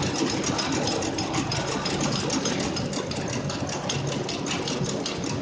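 Industrial shoe-sole stitching machine running on safety boots, with a fast, even mechanical clatter of repeated stitch strokes.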